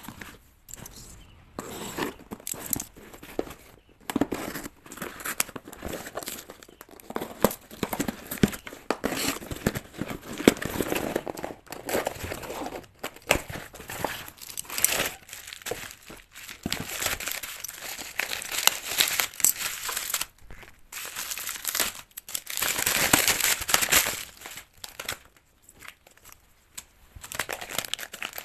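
Album and photocard packaging being unwrapped by hand: irregular crinkling and tearing, with short pauses and busier stretches.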